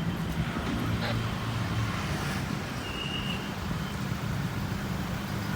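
Steady low engine hum and road noise from a motor vehicle, with a short high beep about three seconds in.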